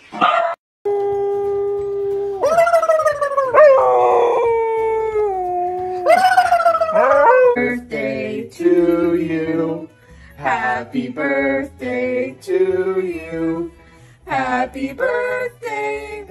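A dog howling: long held and wavering howls that slide up and down in pitch. From about halfway on, a person sings a birthday song in short phrases, with the dog howling along.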